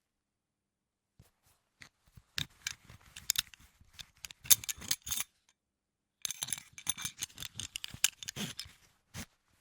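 A belt buckle being handled: two runs of quick clicking and rattling with a pause of about a second between them, then one last click near the end.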